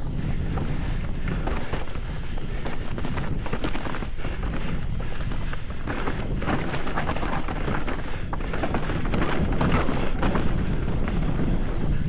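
Wind buffeting the microphone of a moving mountain bike, with frequent short rattles and knocks from the bike over rough ground.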